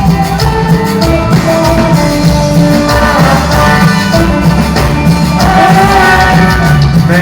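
Live band playing a Latin tropical song, an instrumental passage with a steady bass and drums under a melody line.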